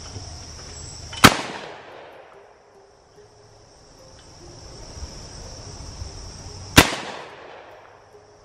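Two shotgun shots at thrown clay targets, about five and a half seconds apart, one a little over a second in and one near the end, each followed by a reverberation that fades over about a second. Insects buzz steadily between the shots.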